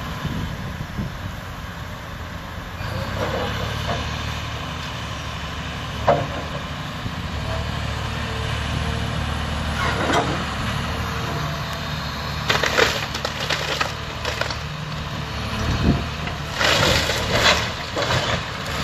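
A wood-framed house splintering and cracking as a hydraulic excavator's grapple bucket tears it apart, over the steady running of the excavator's diesel engine. There are sharp cracks about 6 and 10 seconds in, and clusters of splintering and crashing timber around 13 and 17 seconds.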